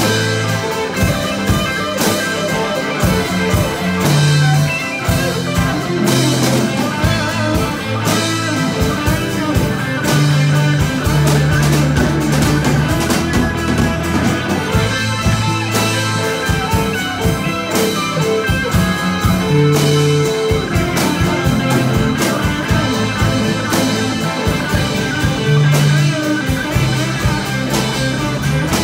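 A live rock band playing an instrumental stretch on guitar and drum kit, with no singing.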